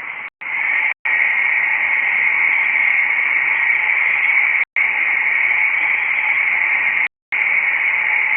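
Loud, steady static-like hiss that cuts out completely for a moment four times.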